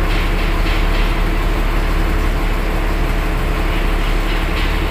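Heavy diesel engine idling steadily, a low, even hum.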